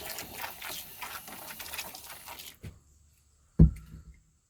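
Aerosol spray can hissing in a rough, crackly spray for about two and a half seconds. About three and a half seconds in there is a single loud thump.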